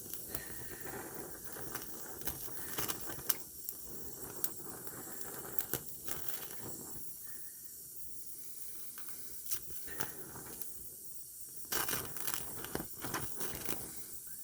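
Welding arc crackling and hissing in short runs with brief pauses, sharp pops scattered through it.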